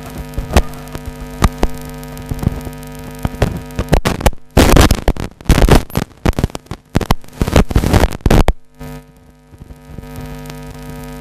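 Stage PA sound: a steady hum through the loudspeakers, broken from about four seconds in by several seconds of very loud, distorted crackling bursts, then the hum alone again.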